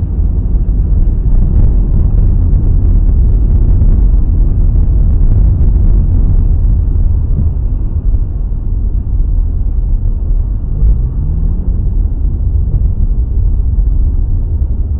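Steady low rumble of a car's engine and tyres on a wet road, heard inside the cabin. About eleven seconds in, a faint tone rises as the engine picks up speed.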